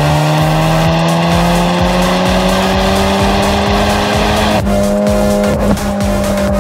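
Car engine under hard acceleration, its pitch rising steadily for about four and a half seconds, then holding level at high revs.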